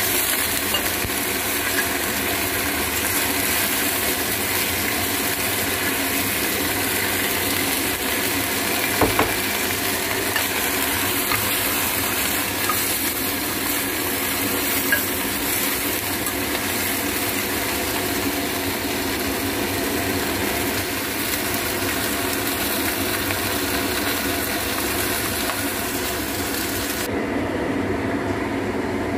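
Steady kitchen cooking noise: a constant hiss with a hum under it as food simmers in a clay pot on a gas stove, and a metal spoon clinking against the pot a few times. The high part of the hiss drops away suddenly near the end.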